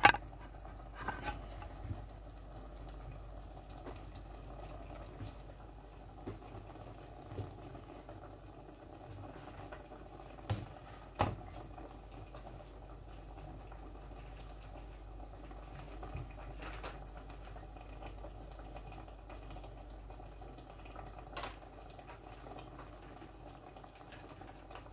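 A pot simmering on an electric hob, a steady low bubbling, with a few sharp clicks and taps scattered through it.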